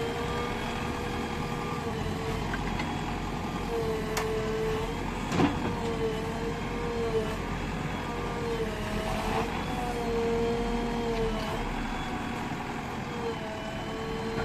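JCB 3DX backhoe loader's diesel engine running steadily, its pitch wavering slightly, with a couple of short sharp clicks about four and five seconds in.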